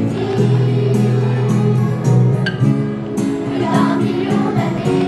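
A children's choir singing to an acoustic guitar, with wooden sticks clacked in a regular beat.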